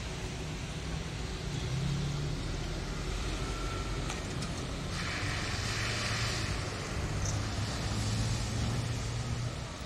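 City street traffic: a motor vehicle's engine running close by under a steady hum, with a swell of tyre hiss about halfway through. It drops away just before the end.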